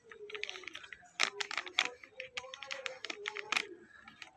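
Plastic chips packet crinkling and crackling as it is handled, in irregular sharp crackles.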